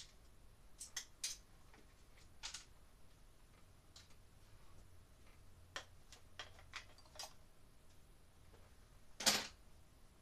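Scattered light clicks and taps of tools and parts being handled, about ten in all, with one louder knock about nine seconds in.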